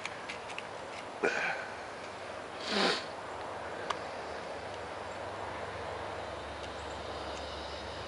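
Steady outdoor background noise with two short, breathy sniffs about one and three seconds in, the second louder. There are a few faint ticks, and a low rumble builds in the second half.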